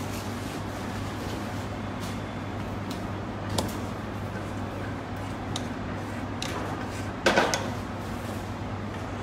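A spatula knocking against a non-stick frying pan as raisins are stirred in hot oil: a short knock about three and a half seconds in and a louder clatter a little after seven seconds, over a steady low kitchen hum.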